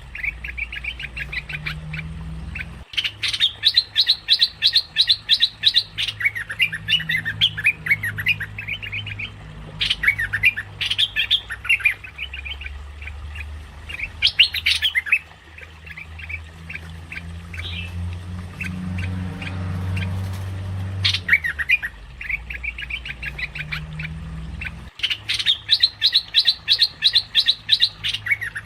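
Merbah lekir bulbul calling in rapid chattering trains of sharp, quick notes, in several bursts with a thinner stretch in the middle, as used for a bird-lure recording. A steady low hum lies underneath.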